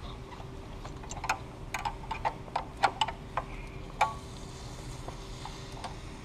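Open-end wrench clicking and tapping against the metal fuel line fitting of a high-pressure fuel pump as the fitting is worked loose, a dozen or so irregular sharp clicks. A faint steady hum runs underneath.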